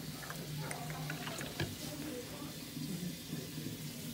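Small plastic clicks and faint trickling as water is squeezed from a dispenser bottle into a measuring vial, over a steady low hum and faint background voices.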